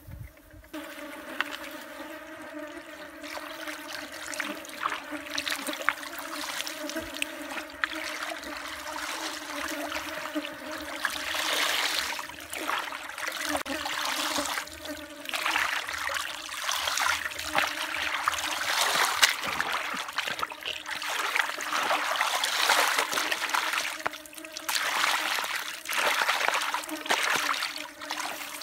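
Muddy water sloshing and splashing as a plastic basket is scooped through shallow mud, with water and mud pouring and dripping off it; the splashing grows louder and busier partway through. A steady low buzz runs underneath.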